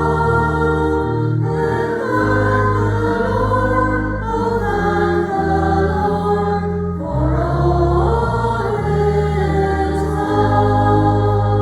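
A choir or congregation sings a hymn in chords over sustained low accompaniment notes, with the chords changing every second or so. The hymn is about harvest: the growing of grass and crops into food.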